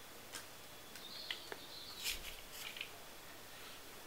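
Faint rustling of tulle and a few light clicks as a tutu on a plastic hanger is handled and set down, with a faint high chirp about a second in.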